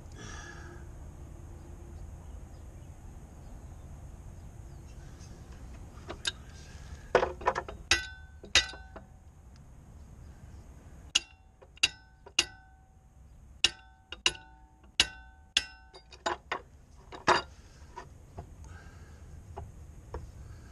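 A bronze boat propeller being struck from behind with a pipe wrench to break it loose from its shaft: about fifteen sharp metal blows at uneven intervals, some in quick pairs, each leaving a short metallic ring.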